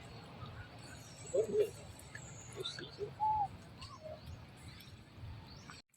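Several short animal calls, one every second or so, over a low steady background; the sound cuts out abruptly near the end.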